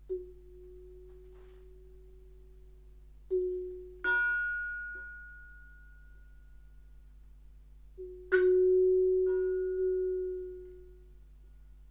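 Yamaha vibraphone bars struck with mallets in a slow, sparse improvisation: a few notes about three, four and eight seconds in, each ringing and fading over two to three seconds, with a soft held low tone beneath.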